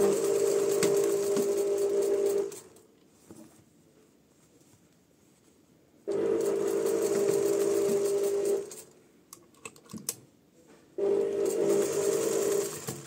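Domestic sewing machine running at a steady speed in three bursts of about two and a half seconds each, stitching a seam, with short pauses between. A few small clicks in the second pause.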